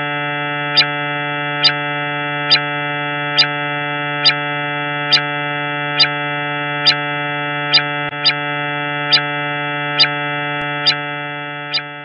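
Synthesized space-ambient drone: a steady chord of many held electronic tones, with a short bright tick repeating a little more than once a second. It fades out near the end.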